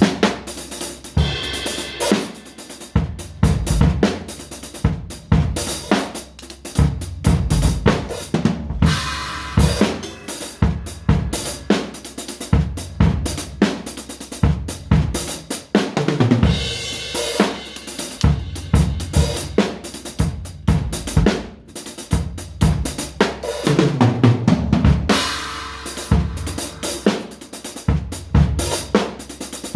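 Acoustic drum kit played continuously and freely: dense, irregular snare and bass drum hits with cymbals and hi-hat ringing over them.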